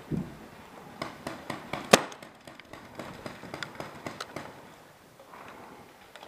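Paintball markers firing: an uneven string of sharp pops over the first few seconds, one much louder shot about two seconds in, then fewer and fainter shots.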